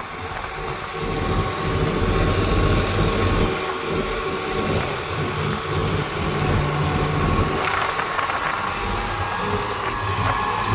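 New Holland 3630 Special Edition tractor's three-cylinder diesel engine running steadily.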